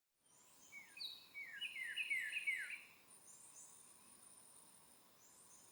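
Wild songbirds singing in the morning: one bird gives a quick run of about five falling whistled notes about a second in, while thin, very high notes from another bird come and go throughout.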